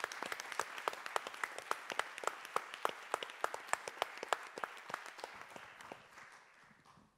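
Applause from a seated audience and panel, many hands clapping irregularly, thinning out and dying away over the last two seconds.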